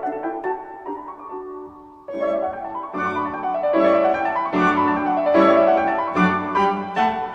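Classical piano music played back through LS3/5A monitor speakers: a softer passage, then louder, fuller chords with more bass from about two seconds in.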